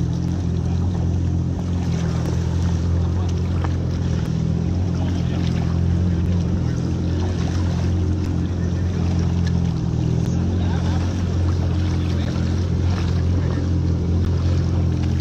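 Jet ski engine idling steadily, a low even drone.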